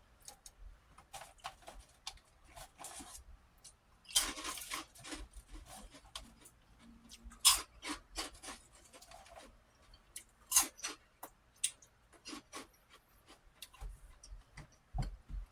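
Prawn crackers being chewed close to the microphone: irregular crisp crunches with a longer, louder bout about four seconds in and a few sharp cracks later on.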